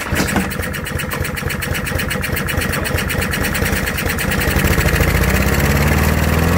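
Honda GCV160 single-cylinder lawnmower engine running with rapid, even firing pulses. It picks up and settles into a steady, stronger run about halfway through.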